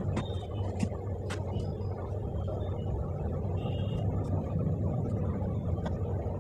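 A steady low rumble, with a few faint clicks and brief high blips over it.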